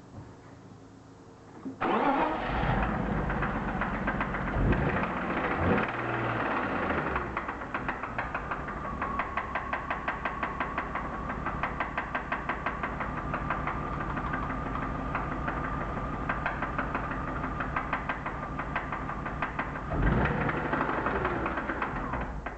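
BMW M52B25 straight-six started about two seconds in and running with cylinder 6's ignition coil unplugged, a fast, even knock running through it. The engine is switched off abruptly near the end. The knock is unchanged with this coil pulled, which makes the owner doubt that it is a rod bearing.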